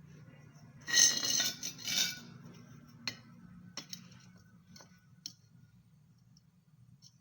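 Metal clinking and scraping as steel pieces or hand tools are handled: two louder scraping clatters about a second and two seconds in, then a few light metallic ticks, over a faint steady low hum.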